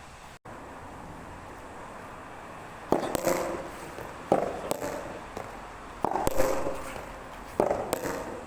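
Soft tennis rubber ball being struck by rackets and bouncing: six sharp pops with a brief ring, starting about three seconds in and coming roughly in pairs, over a steady rush of wind.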